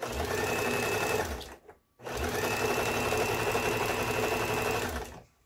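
Lion Indigo 14 household electric sewing machine stitching through fabric in two runs, a short one and then one of about three seconds, with a half-second stop between them and a steady high whine over the rapid needle beat. It is being test-sewn after repair, standing on a thin veneer desk that makes the machine resonate.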